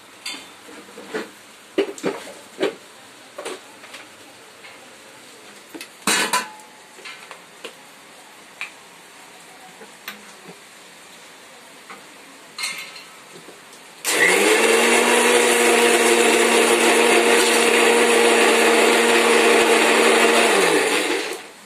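A series of scattered knocks and clinks, then an Indian mixer grinder runs for about seven seconds, grinding coconut chutney with a little water. Its motor whirs up to speed about fourteen seconds in and winds down as it is switched off near the end.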